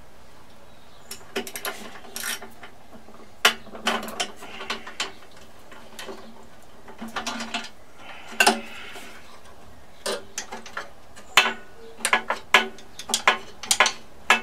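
Irregular clicks and clanks of hand tools on the metal parts of a Briggs & Stratton Classic lawnmower engine as it is taken apart, coming thicker near the end.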